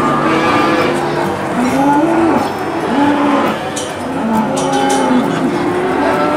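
Cattle mooing over and over: short calls that rise and fall, following one another about every half second to a second, some overlapping.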